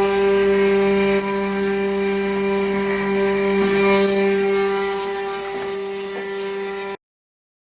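DIY CNC router spindle running with a steady pitched whine while machining an aluminum coin. It cuts off suddenly near the end.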